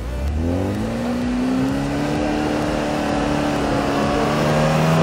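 Off-road vehicle engine revving hard: the pitch climbs over the first couple of seconds, then holds at high revs.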